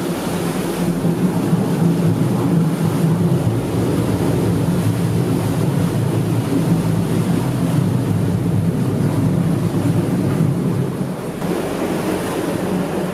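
Vaporetto water bus's engine running steadily with a low rumble, with water and wind noise over it.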